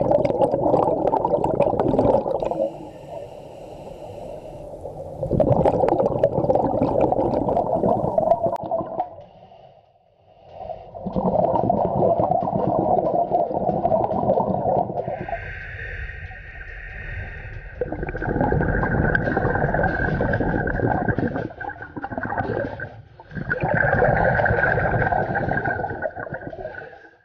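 Scuba regulator breathing underwater: long bubbling exhalations, about five of them, alternating with quieter hissing inhalations. A faint steady whistle joins in about halfway through.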